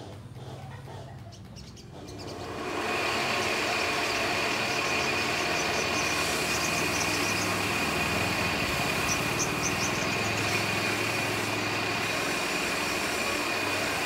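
A loud steady hiss comes in about two and a half seconds in and covers everything, with a thin steady high tone running through it. Faint, quick, high chirps from a caged sogon (sogok ontong) come through it twice.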